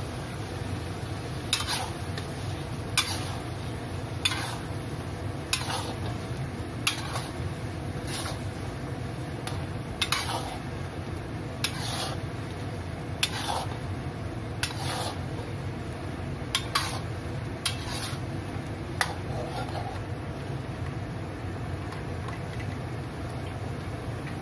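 Metal spatula scraping and clacking against a metal wok as shrimp in sauce are stir-fried. There are about a dozen strokes, roughly one every second and a half, and they stop some five seconds before the end. A steady low background noise runs underneath.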